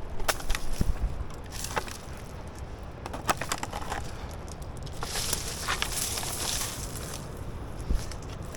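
Dry beach debris, coconut husks and bamboo, crackling and rustling as it is gathered and handled, with a low rumble of wind on the microphone and a couple of dull thumps.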